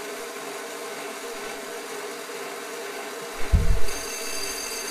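Inland DB-100 diamond band saw running steadily. About three and a half seconds in comes a short low thump, then a steady high-pitched whine as the diamond blade starts grinding into the glass bottle.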